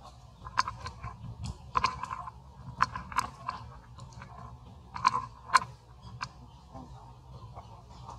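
A macaque biting and chewing a small green fruit, with irregular sharp crunches, a handful of louder ones in the first six seconds.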